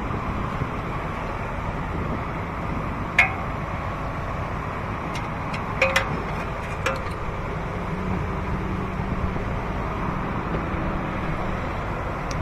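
Steady background noise with a few light plastic clicks and taps, one about three seconds in and a quick cluster around six to seven seconds, as the brake pad wear sensor wire is worked into its clips.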